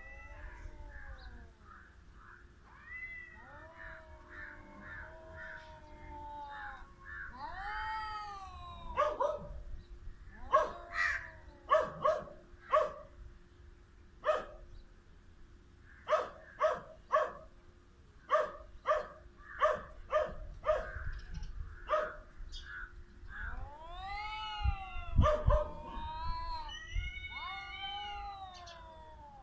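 Two domestic cats, a grey tabby and a ginger, caterwauling at each other in a territorial standoff. Long wavering yowls give way to a run of short, sharp calls through the middle, then long rising-and-falling howls near the end.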